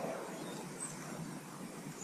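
A few faint, short high chirps from small garden birds over a steady background hiss.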